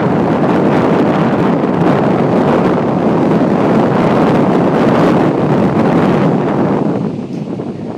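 Wind buffeting the microphone, a loud, steady rushing noise that eases a little about seven seconds in.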